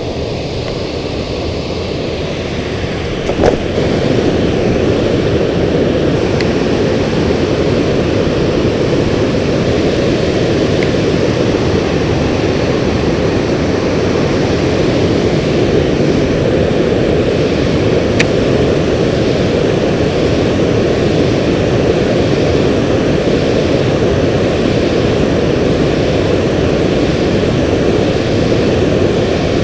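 Steady rush of water pouring over a river spillway and through rapids. It grows a little louder after a short knock about three and a half seconds in.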